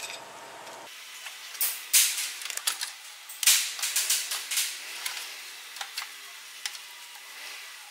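Clinks, knocks and scraping of metal parts as a truck air compressor is fitted onto the engine by hand. There is a quick cluster of sharp clicks about two seconds in, a longer run of knocks and scrapes from about three and a half to five seconds in, then a few single clicks.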